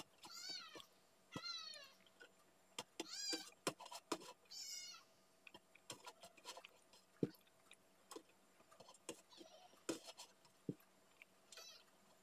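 Domestic cats meowing faintly and repeatedly: about four meows that rise and fall in pitch in the first five seconds, then a couple of fainter ones later. Small clicks of hand-eating from a steel plate fall in between.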